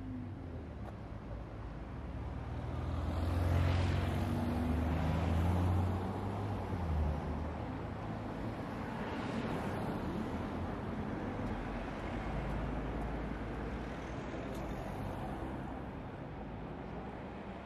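Road traffic passing close by. A heavy vehicle's deep engine rumble swells and fades about three to six seconds in, and another vehicle passes about nine seconds in.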